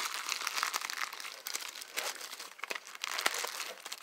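Clear plastic bag crinkling as a metal part inside it is handled and unwrapped, a continuous crackle with many small sharp clicks.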